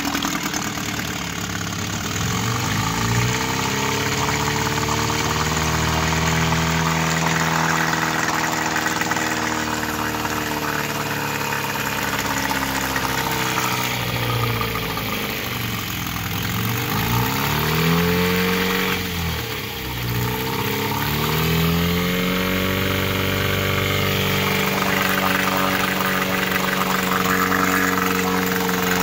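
Kiekhaefer Mercury Merc 60 6 hp twin-cylinder two-stroke outboard running with its lower unit in a test bucket of water. Its speed climbs over the first few seconds and holds. It drops back about halfway, dips briefly near two-thirds of the way, then picks up again and runs steadily.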